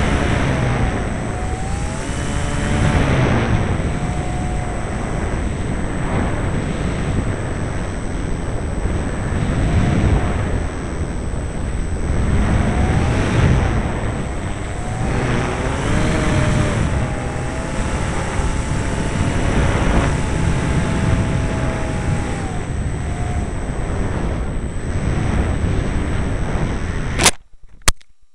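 Onboard sound of a radio-controlled model airplane in flight: heavy wind noise over the microphone, with the motor and propeller whine rising and falling in pitch with throttle and manoeuvres. About 27 seconds in comes a sharp knock as the plane comes down in the grass, and the motor noise stops.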